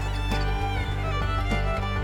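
Background music with fiddle over a steady bass line, notes changing every half second or so.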